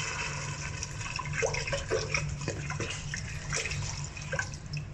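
Water pouring from a plastic bottle into a stainless steel stockpot of browned fish heads, glugging and splashing irregularly: about a liter of water going in to start a fish stock.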